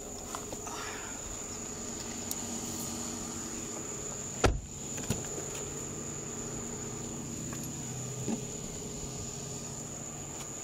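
A vehicle engine idling with a steady hum, a sharp single knock about four and a half seconds in, and a few lighter clicks. A faint high steady whine runs under it.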